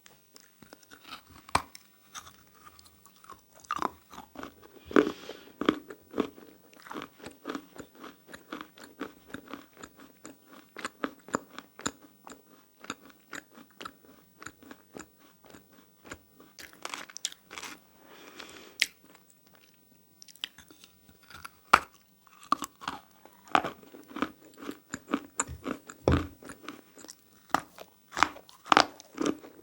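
Close-miked biting and chewing of dry handmade clay and plaster chunks: dense, irregular crisp crunches with a few louder bites scattered through.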